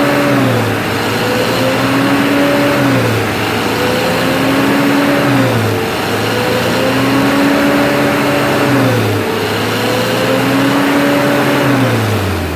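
Mitsubishi L300 diesel engine revved about five times in a row. Each rev climbs over a second or two and drops back quickly, and the engine note dies away near the end. This is a free-rev test for black exhaust smoke after a fuel-saver device has been fitted.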